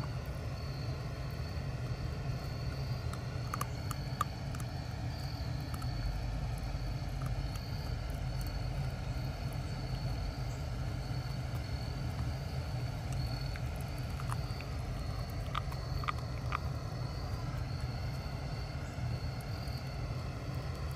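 Steady outdoor background rumble with a high, evenly pulsing chirp running through it, and a few faint clicks about four seconds in and again around fifteen seconds in.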